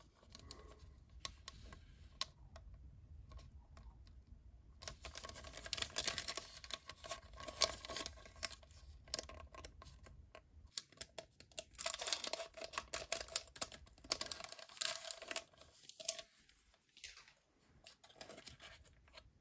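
Plastic gummy-candy wrappers crinkling and clicking as they are handled, with denser crackling in the second half as a packet is torn open; quieter plastic tray clicks near the end.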